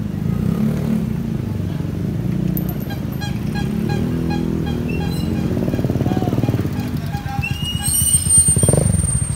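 Street ambience with a motorcycle engine running steadily and music playing.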